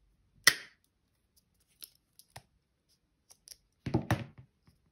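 Rotary leather hole punch snapping shut on a four-layer cork strap, one sharp click about half a second in, but the punch has not quite cut all the way through. Lighter clicks and a louder cluster of knocks near the end as the punch and strap are handled.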